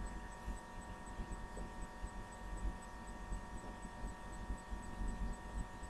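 Steady electrical hum with a faint, uneven low rumble: the background noise of the recording itself, with no distinct sound standing out.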